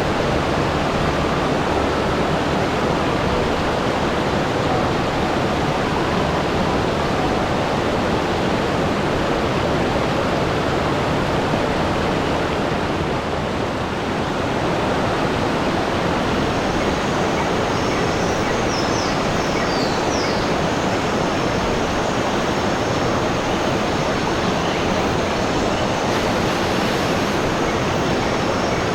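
Steady rushing water, an even hiss with no rhythm. From about halfway through, faint thin high-pitched tones with a few short slides in pitch sit above it.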